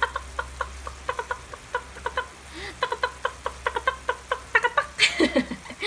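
Pepper grinder twisted over a pan of igado, giving a quick run of short squeaky chirps, several a second. A louder, noisier sound comes about five seconds in.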